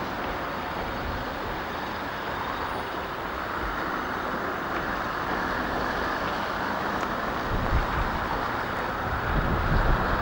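Diesel train running steadily, with a few low thuds in the last couple of seconds.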